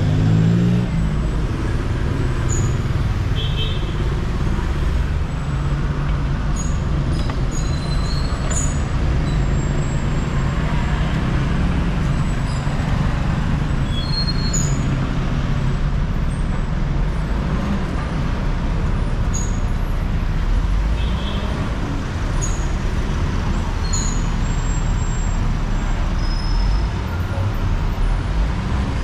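Busy street traffic: a steady rumble of vehicle engines and tyres, with scattered brief high clinks and squeaks.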